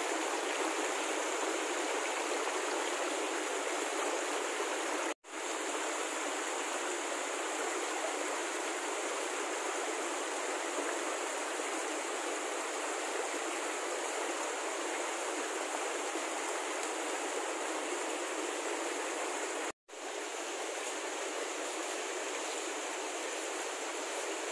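A shallow, rocky mountain creek running over stones in a steady rush of water. It drops out for an instant twice, about five seconds in and near the twenty-second mark.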